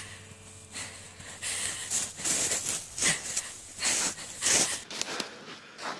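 A person breathing hard and fast, close to the microphone: a string of uneven, hissing breaths.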